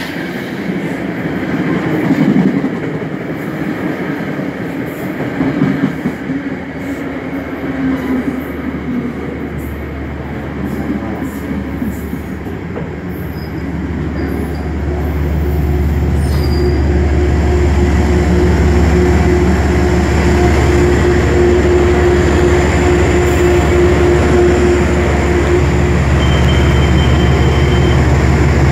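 Metro-North Shoreliner commuter train arriving at a platform, its wheels and brakes squealing unevenly as it slows. After about fifteen seconds it stands with a louder, steady low drone, and a short high beep sounds near the end.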